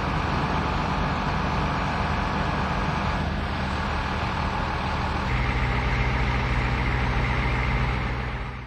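A large vehicle's engine idling steadily. About five seconds in, the sound changes abruptly to a louder, steadier low hum, then cuts off at the end.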